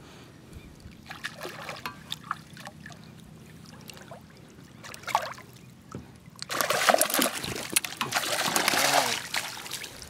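Splashing water for about three seconds from about six and a half seconds in, as a hooked fish is drawn to the surface and scooped up in a landing net; a few faint ticks before it.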